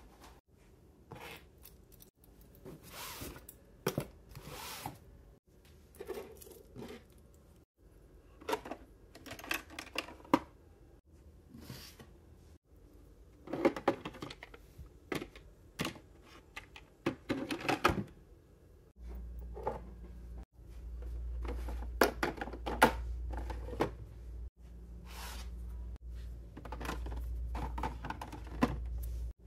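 Makeup products and clear plastic drawers being handled: an irregular run of taps, clicks and light clatters of plastic on plastic, with brief rustling. About two-thirds of the way in, a steady low hum joins underneath and stays.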